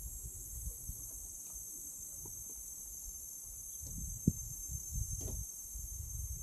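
Outdoor ambience: a low, uneven rumble like wind on the microphone under a steady high hiss, with a sharp click about four seconds in and a couple of softer knocks after it.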